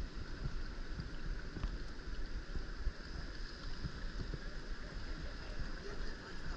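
Water lapping and sloshing against a jangada sailing raft under way, with wind on the microphone.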